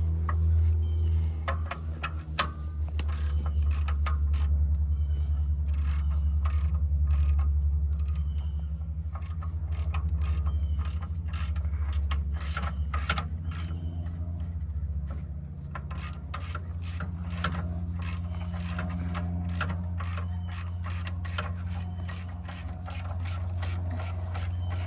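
Ratchet wrench clicking steadily as it turns the stump grinder's track tensioner bolt, about two to four clicks a second and a little quicker in the second half, over a steady low hum.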